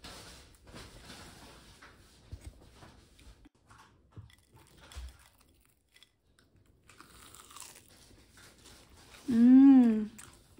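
Biting into and chewing a crunchy fried veg cutlet: faint crunches and chewing, then about nine seconds in a loud "mmm" of enjoyment that rises and falls in pitch.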